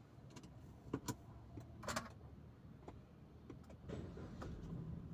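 Car engine being started: a few small clicks, then the engine catches about four seconds in and settles into a low, steady idle.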